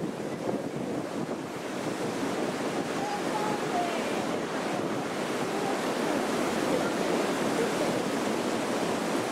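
Strong wind blowing across the microphone: a steady rushing noise.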